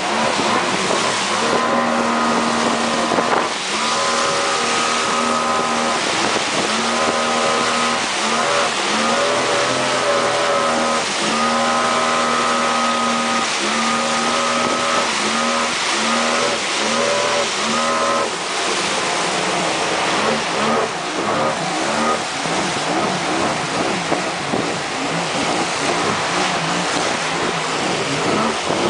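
Outboard motor of a river pirogue running hard, its pitch repeatedly rising and falling as the throttle is worked, over a constant rush of water and spray against the hull.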